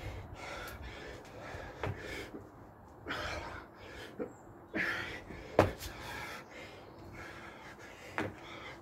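A man breathing hard and gasping from exertion while doing burpees, with sharp thuds of his hands and feet landing on paving slabs. The loudest thud comes about five and a half seconds in.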